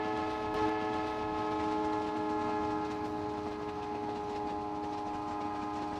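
Train horn sounding one long, steady chord of several tones together, slowly fading, over the running noise of the train.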